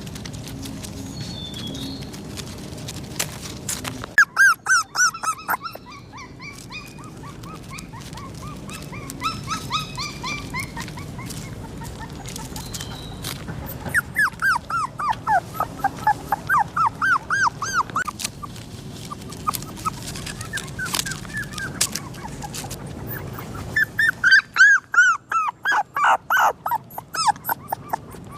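A dog whining and yelping in runs of short, high cries that slide downward in pitch, several runs in a row. The loudest runs come about four seconds in and near the end.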